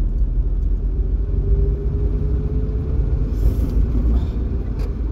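Steady low rumble of a vehicle driving along a road, with a faint steady tone through the first few seconds and a short click near the end.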